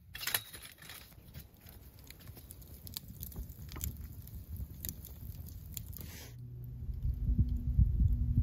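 Wood campfire crackling and popping with irregular sharp snaps. About six seconds in, music with a low bass line and drums comes in over it.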